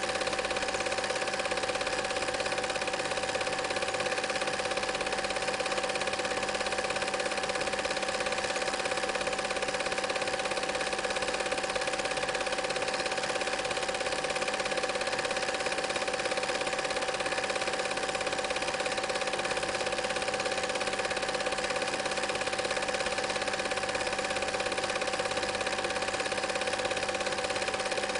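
A cine film projector running: a steady mechanical whirr and clatter with a constant hum that does not change.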